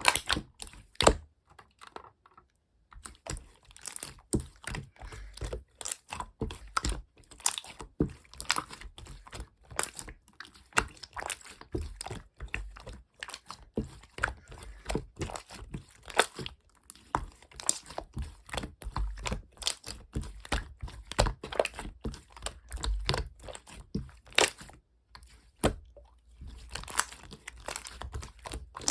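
Irregular close-up clicking, tapping and crinkling, like objects or packaging being handled, with a few short pauses.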